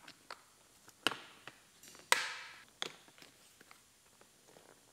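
Plastic retaining tabs of a 2016 GMC Terrain seat cover snapping free as they are popped off the seat back: a string of sharp clicks and snaps, the loudest about two seconds in, then a few faint ticks.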